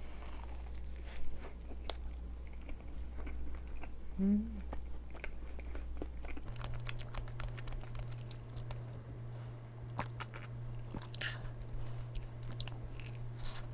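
Close-miked chewing and biting of a lemon meringue tart with a crisp cookie-like crust, with scattered small crunches and clicks and a brief hum of the eater's voice about four seconds in.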